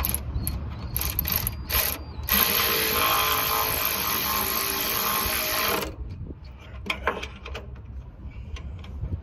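Cordless power wrench spinning a bolt: three short bursts, then one longer run of about three and a half seconds that stops suddenly, followed by a few light clicks of the socket and extension.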